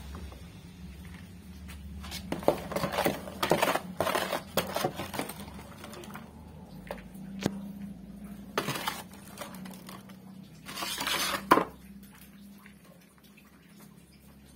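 Small metal hand trowel scraping up loose potting soil from a plastic tray and tipping it into a plastic plant pot, soil pattering down. It comes in several scraping bursts, the last ending in a sharp knock.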